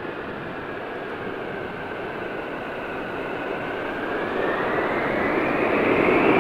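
Jet airliner engines with a steady rushing noise and a whine that dips and then rises in pitch, growing louder toward the end.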